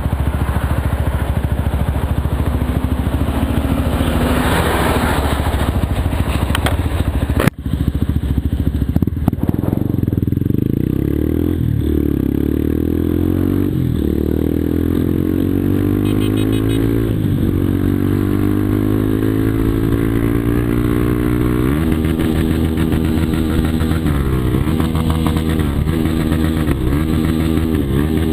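Two Yamaha Fazer 250 single-cylinder four-stroke engines with Jeskap aftermarket exhausts running steadily together, their slightly different speeds giving a wavering beat. A single sharp click with a brief break comes about seven and a half seconds in.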